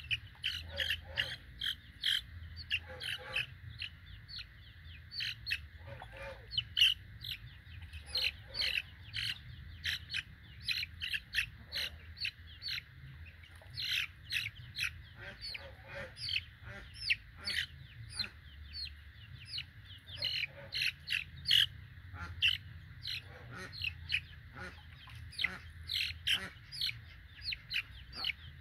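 Young Bangkok chicken chicks, 24 days old, peeping: short high calls in quick, irregular runs.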